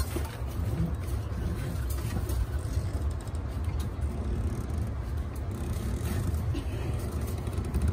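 Hands handling a brass cable gland and a thick armoured cable, with faint scrapes and small clicks, over a steady low rumble.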